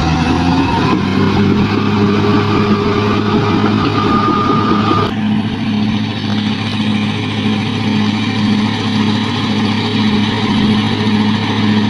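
Bulldozer's diesel engine running under load, its pitch rising over the first few seconds, then changing abruptly about five seconds in to a steady, evenly pulsing run.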